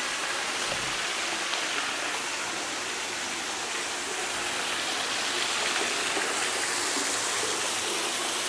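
Steady rush of water from a pool's wall waterfall, sheeting down a stone wall into the pool.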